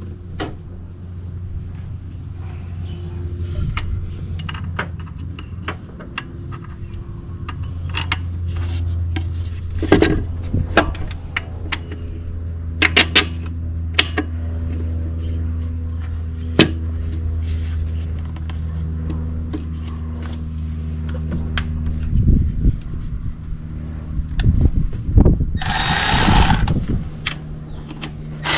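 Metal tools clicking and knocking against the engine while a new alternator is bolted into place, over a steady low hum. A brief, loud rushing burst of noise comes near the end.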